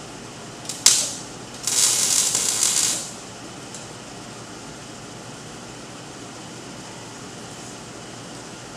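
Gas-shielded wire-feed (MIG) welder laying tack welds on a steel frame: a brief crackle about a second in, then a sizzling hiss for about a second and a half. A steady background hum of shop noise runs underneath.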